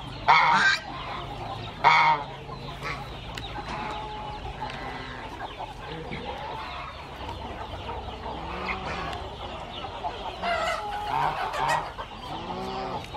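Farmyard chickens clucking and calling, with two loud calls in the first two seconds and a run of clucks in the last few seconds.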